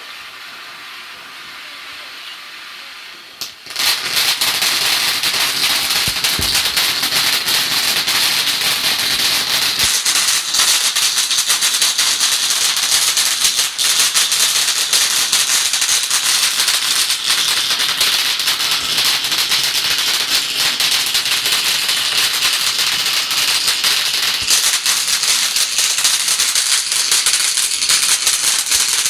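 Glitzy Blitz firework fountain burning with a steady hiss, then about four seconds in it jumps suddenly into a much louder stage of dense, fast crackling that carries on unbroken.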